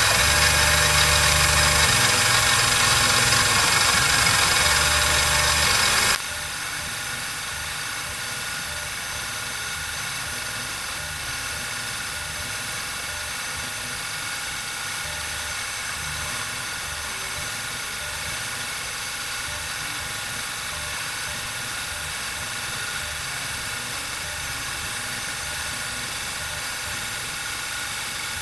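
CNC mini mill spindle motor running steadily while its cutter works a brass checker. The sound drops suddenly to a quieter steady run about six seconds in.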